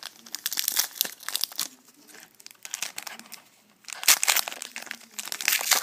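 Foil wrapper of a trading-card pack crinkling and tearing as it is ripped open by hand, in irregular bursts, loudest about four seconds in and again near the end.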